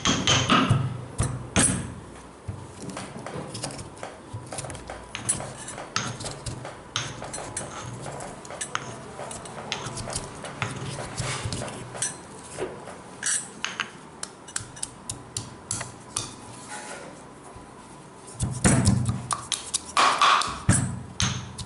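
Ginger pieces being crushed by hand: irregular knocks and clinks of the crushing tool against a hard dish, roughly one or two a second, with heavier, denser pounding at the start and again near the end.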